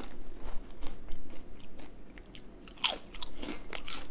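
Multigrain tortilla chip (Late July Red Mojo, made with jalapeños) being chewed with the mouth close to the microphone: a run of irregular crisp crunches, loudest a little after the middle and near the end.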